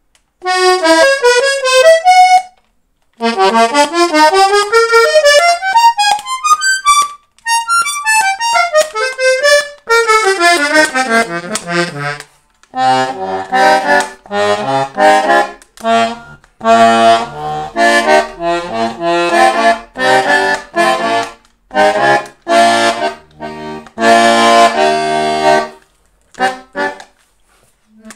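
Hohner Liliput small accordion being played for a sound test. It first runs single notes up and down the scale, then from about halfway plays chords over low bass notes in separate stabs with short breaks between them.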